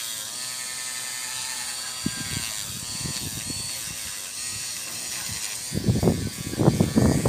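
Electric nail drill with a sanding band whining as it files a soft gel nail tip, its pitch dipping several times as it bears on the nail. Near the end a louder, scratchy brushing noise takes over as the filing dust is swept off with a nail brush.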